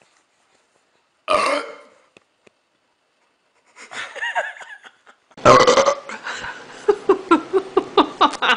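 A person burps loudly about a second in, and again just past halfway. Softer vocal sounds come between the two, and the second burp runs into a quick string of short vocal bursts, about three or four a second.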